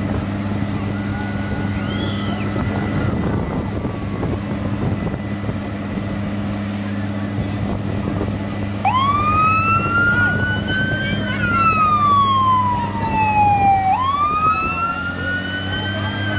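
Fire truck siren wailing, starting about halfway through: it sweeps up quickly, falls slowly, then sweeps up again. A steady low drone runs underneath.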